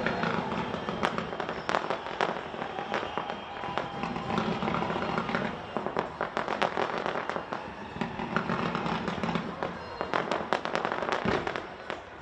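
Fireworks display going off: a dense run of sharp bangs and crackling, with the bursts thinning out near the end.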